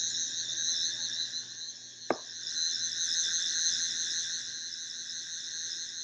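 Toy 11th Doctor sonic screwdriver sounding its activating sound from its built-in speaker: a steady, high electronic whine with a fast warble that cuts off at the end. A single click comes about two seconds in.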